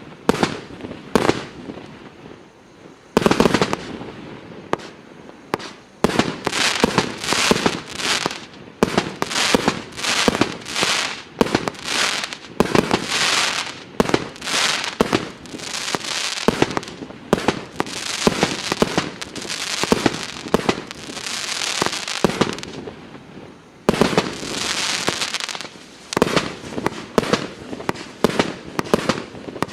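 Multi-shot firework cake (FP-B354) firing a rapid, continuous series of shots and bursts, one to two a second, overlapping. There is a brief lull about two seconds in, then the barrage resumes.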